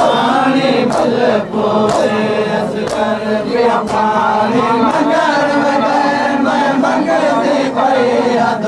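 Large crowd of men chanting a nauha in unison at a Muharram mourning gathering. The chant is cut by regular sharp slaps in time with it, typical of matam (rhythmic chest-beating).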